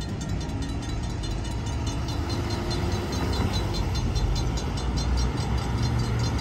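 Railroad crossing warning bell ringing in rapid, even strokes, about five a second, while the gates lift after the train has cleared. Under it is the low rumble of cars driving over the crossing.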